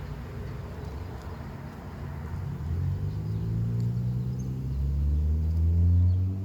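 A low engine rumble with a hum that slowly rises in pitch and grows louder from about halfway through, as from a motor vehicle.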